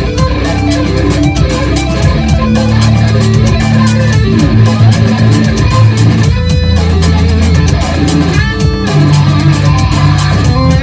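Electric guitar played through an ENO effects stomp box: sustained low notes and riffs with a couple of string bends.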